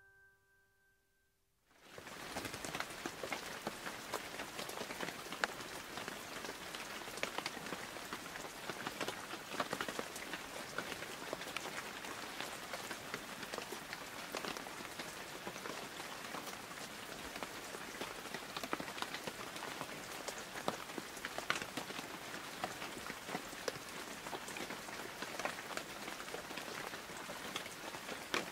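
Steady rain falling, a dense even hiss of many fine drop ticks, setting in about two seconds in after a fading piano note and near silence.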